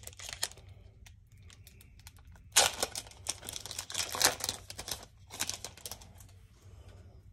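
Foil hockey-card pack wrapper crinkling as it is torn open and crumpled by hand: a few short crackles at first, then a louder run of crinkling from about two and a half to six seconds in.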